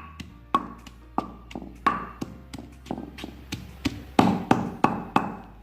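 Pestle pounding garlic with salt in a metal imam dasta mortar: a steady run of sharp strikes, about three a second, each with a short metallic ring, the last few louder.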